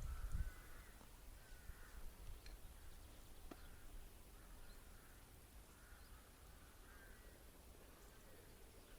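Faint bird calling in a long series of short, harsh calls, over a low rumble of wind on the microphone. There is a knock about half a second in and a small click midway.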